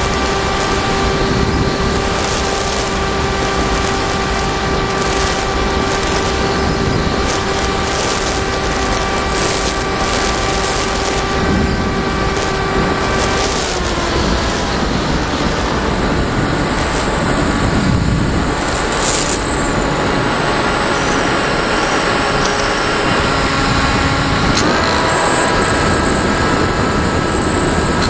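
Firstar 2000 RC motor glider's propeller motor running, heard from the onboard camera under a steady rush of airflow. The motor's steady tone drops and glides down about halfway through as the throttle is eased back, then comes back up at a higher pitch near the end.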